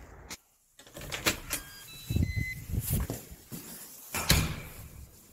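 Knocks, clicks and low thumps inside a lift car, likely the camera being handled and the doors moving, with a short electronic beep about two seconds in and a sharp click near the end.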